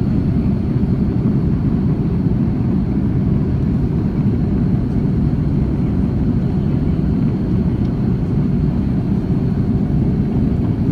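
Steady cabin noise of an Airbus A330-300 airliner in flight: an even low rush of air and engine sound with a faint high whine above it.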